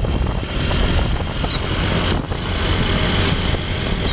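A motor vehicle engine running steadily under way, with road noise.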